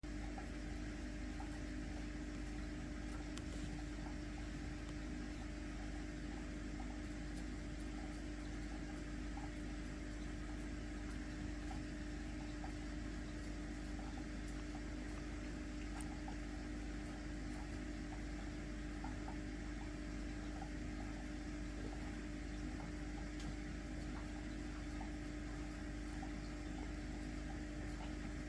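Steady mechanical hum with one constant tone and an even hiss, like a fan or household appliance running, with faint scattered ticks.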